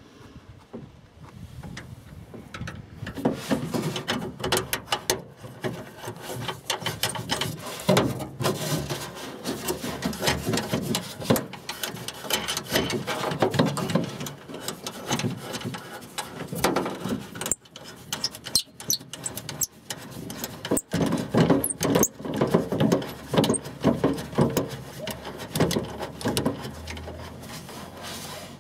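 Handling noise inside a Mitsubishi Lancer's trunk lid as the high-mounted brake light is fitted. Gloved hands rub, scrape and click against the light's plastic housing, its wiring and the sheet metal, and a nut is threaded onto the light's mounting stud by hand. The sound is quiet at first and gets busier from about three seconds in, going on as irregular clicks and rubs.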